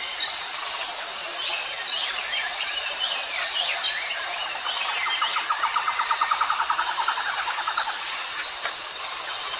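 Wild forest ambience: insects keep up a steady high pulsing drone while birds give scattered short chirps. About five seconds in, a rapid trill of evenly spaced notes runs for about three seconds.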